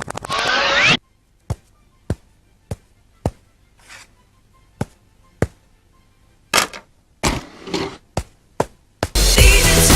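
Cartoon sound effects: a loud swooping effect cuts off about a second in, then come sharp single knocks about every half second or so, with a few short rustling bursts between. Loud pop music starts near the end.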